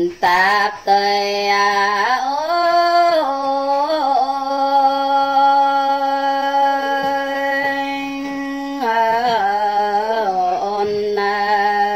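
A woman singing a Red Dao folk song (pá dung) solo and unaccompanied, in long drawn-out notes with wavering, bending ornaments, one note held steady for about five seconds in the middle.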